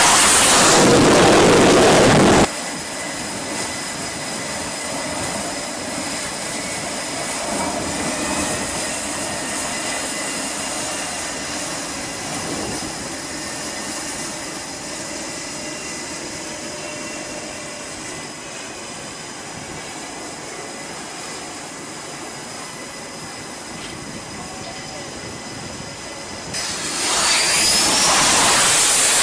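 F/A-18 fighter jet engines. There is a loud jet blast as one launches from the carrier deck, and it cuts off suddenly after about two and a half seconds. Then comes a quieter, steady rushing noise with a faint high whine from jets running on the flight deck. Near the end the loud jet noise returns as another F/A-18 comes in to land.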